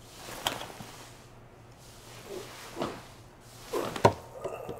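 Faint room noise: a few soft knocks or bumps over a low steady hum, the sharpest one near the end.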